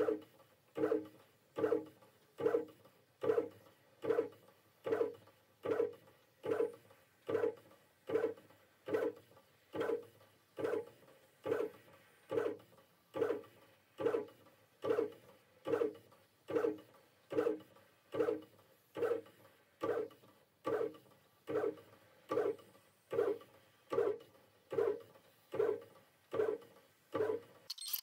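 Original Prusa XL 3D printer printing a full-bed first layer: its stepper motors give a pitched hum that swells and fades in a steady rhythm, a little more than once a second, as the print head sweeps back and forth. The sound cuts off suddenly at the very end.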